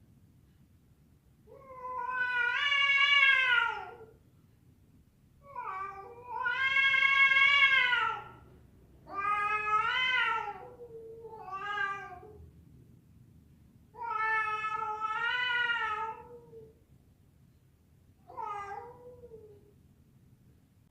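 A cat yowling: six long, drawn-out meows with pauses between them, the last two shorter, each wavering a little in pitch.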